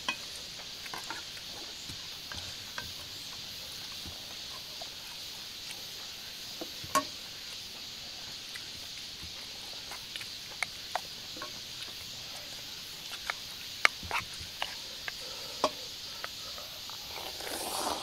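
Scattered small clicks and taps of eating utensils against dishes, a few sharper ones about 7 and 14 seconds in, over a steady high insect hum.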